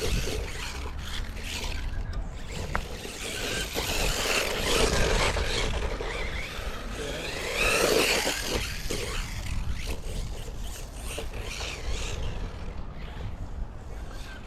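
1/16-scale HSP electric RC trucks driving over soft dirt, their tyres scrabbling and scraping. It is a rough, continuous noise that swells about four seconds in and again around eight seconds, over a steady low rumble.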